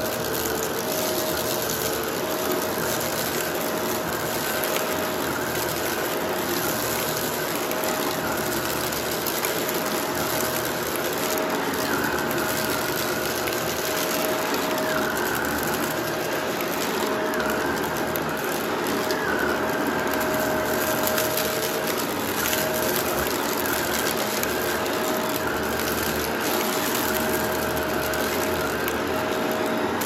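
Vacuum cleaner with a motorized brushroll running steadily on a rug, with a light mechanical rattle from debris being picked up.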